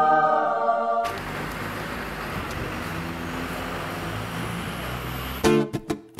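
A held musical chord stops abruptly about a second in, giving way to steady city street traffic noise. Near the end, strummed guitar music starts.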